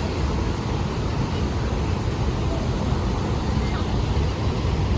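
Niagara Falls' water pouring down, a steady rushing rumble heaviest in the low end.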